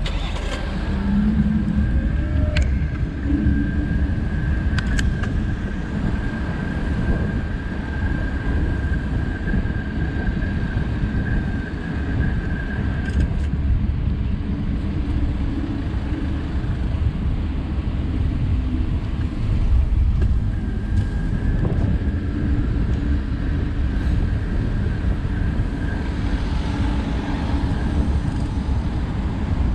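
Road traffic on a busy city boulevard: cars passing with a steady low rumble of engines and tyres. A faint steady high whine runs through the first half and comes back near the end.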